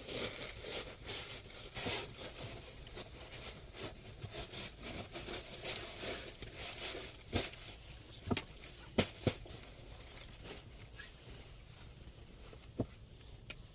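Rustling, scraping handling noise for about seven seconds. Then come a few sharp knocks or snaps, four close together and one more near the end.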